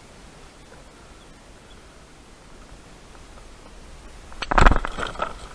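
Handling of a big channel catfish in a kayak: a short, loud burst of knocks and clatter about four and a half seconds in, as the fish is gripped by the jaw on a hanging scale, over a faint steady outdoor hiss.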